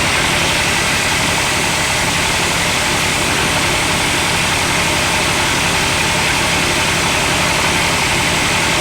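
Floating fish-feed pellet machine running steadily: a continuous mechanical drone with a fast, even low throb and a hiss above it, unchanging throughout.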